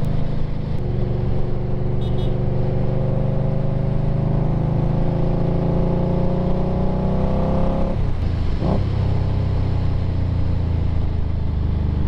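Indian Scout Bobber Twenty's V-twin engine pulling under acceleration, its pitch climbing steadily for several seconds. About eight seconds in it drops back and runs on steadily at lower revs.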